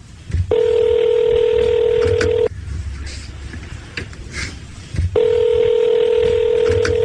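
Telephone ringback tone heard down the line while an outgoing call rings: two long, steady tones of about two seconds each, a few seconds apart.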